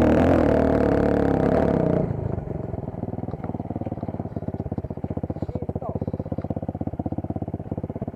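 Dirt bike engine running at high revs, then the throttle closes about two seconds in and it drops to an idle with a fast, even beat.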